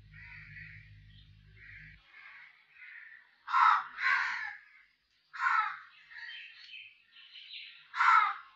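Crows cawing: a string of harsh caws, faint at first, then four loud ones in the second half.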